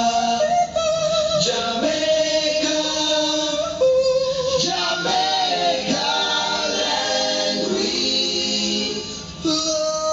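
Reggae record played loud over a sound system, with several voices singing held notes in harmony. The music dips briefly near the end, then comes back in.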